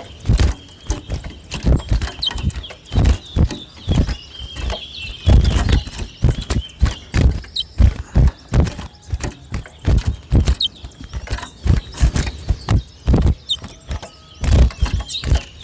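Irregular sharp knocks and thumps, with a few brief high chirps from caged towa-towa finches scattered among them.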